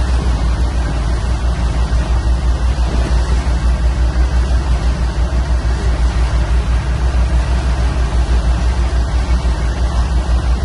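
A boat's engine running steadily with an even low throb, under a rush of wind and churning wake water.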